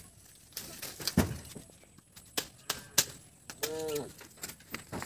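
A long bamboo stick knocking and rustling through the branches and leaves of a kadam tree: irregular sharp knocks, the loudest about a second in and around three seconds in. A short call that rises and falls in pitch comes a little before the end.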